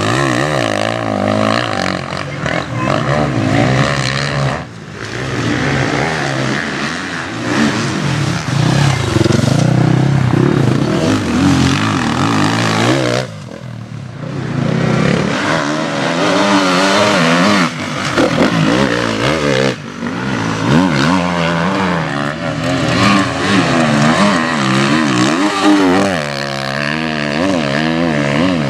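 Enduro motorcycle engines revving up and down as riders pass over a dirt course, the pitch rising and falling with the throttle. The sound drops out briefly a few times between passes.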